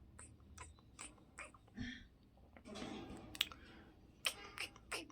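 Close-miked chewing and wet mouth sounds: a run of sharp smacks and clicks, about two or three a second, with about a second of hiss near the middle.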